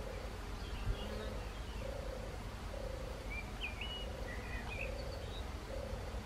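Honeybees buzzing as they take off and land on wet mud, over a steady low rumble. A short hum-like note from some unseen animal repeats about once a second, and a small bird chirps a few times in the middle.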